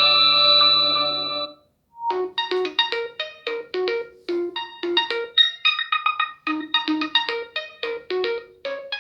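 Realme GT5 Pro ringtones playing: a held chord ends about a second and a half in. After a brief silence, a new ringtone starts, a quick repeating melody of short notes at about four a second.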